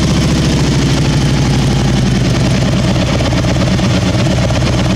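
Harley-Davidson touring motorcycle's V-twin engine idling steadily just after a hot start. There is no clunk from the compensator, which has been refitted with a fifth spring washer in its pack.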